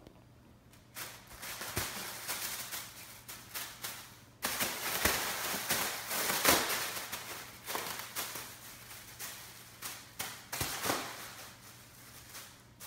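A thin plastic bag crinkling and rustling in irregular bouts of crackling as a Savannah cat pounces on it, bats it and drags it across a hardwood floor. It starts about a second in, stops briefly around four seconds, and is loudest midway.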